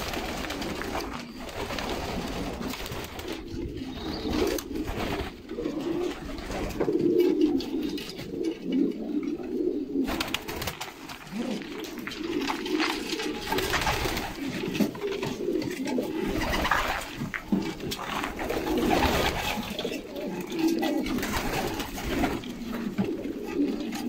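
A flock of domestic pigeons cooing without pause, many birds overlapping in a low, wavering chorus.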